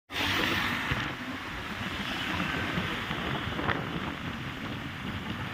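Steady wind noise buffeting the microphone, a rushing hiss with a fluttering low rumble.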